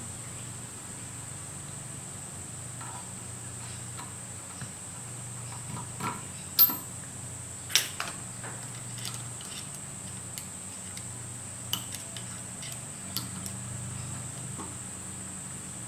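Small metal parts of a model steam engine's valve gear clicking and clinking as the brass slide valve and steam chest are handled and fitted by hand: scattered light taps, the sharpest about six and a half and eight seconds in, over a steady low hum.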